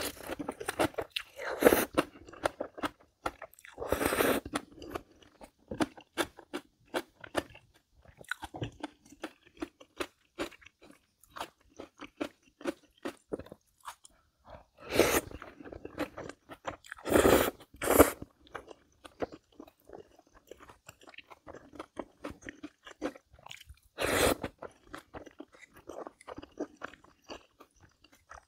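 A person eating: steady chewing with many small wet mouth clicks, broken by several louder crunching bites spread through.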